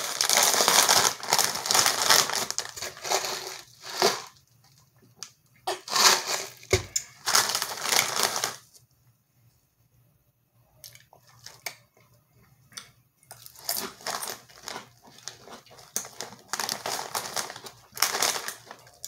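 Rap Snacks chip bag being pulled open and crinkled by hand, loud in several spells with a quiet stretch in the middle as chips are taken out.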